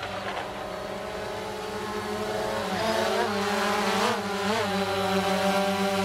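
DJI Phantom 2 Vision+ quadcopter's four propellers whirring, a steady motor buzz with several tones. About three seconds in, the pitch rises and wavers as the motors throttle up and the drone lifts away.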